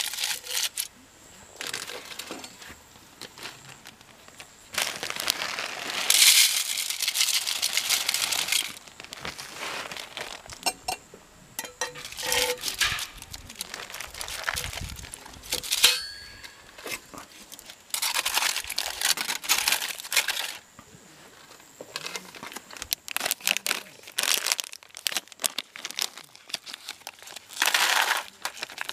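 Packaging being crinkled and rustled by hand in irregular bursts, with a few light clinks.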